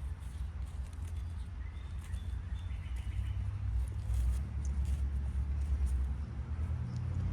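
Faint, short bird chirps, a few scattered high notes, over a steady low rumble on the microphone.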